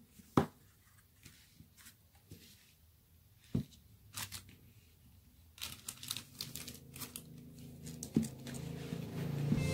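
Unboxed drill parts handled on a table: a few light plastic clicks and knocks, then from about halfway a crinkling rustle of plastic wrapping that grows busier toward the end.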